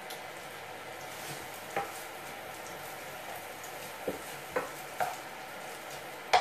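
Diced onions, ham and garlic sizzling gently in butter in a frying pan, while a wooden spatula stirs them and knocks against the pan a few times, mostly in the second half.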